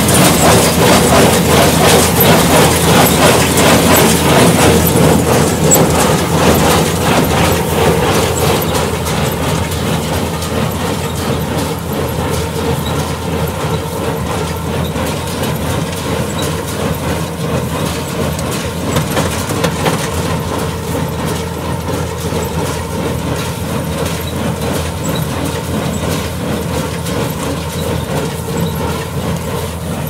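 Shaktiman square baler running while picking up and baling straw: a continuous rapid mechanical clatter over a steady machine drone. It is louder during the first several seconds, then settles a little lower.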